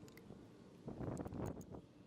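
Rustling and handling noise with a few light clicks, loudest from about a second in to halfway through.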